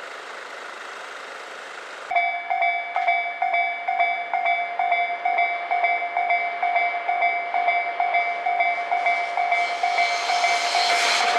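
Japanese level-crossing warning bell starting about two seconds in and ringing on in even, repeated dings, about two a second. Near the end the noise of an approaching train builds up under it.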